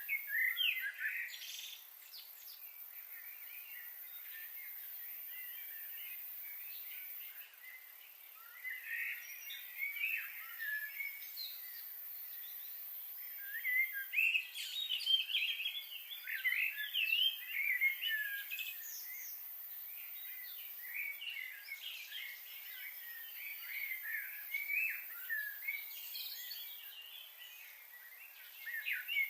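Small birds chirping and twittering in scattered, overlapping flurries, busiest about halfway through, over a faint steady high hiss.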